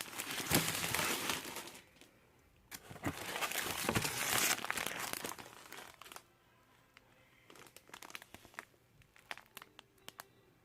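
Crinkly packaging being handled and unwrapped, in two long spells of crackling: one ending about 2 seconds in, the next running from about 3 to 6 seconds in. A few light clicks and taps follow.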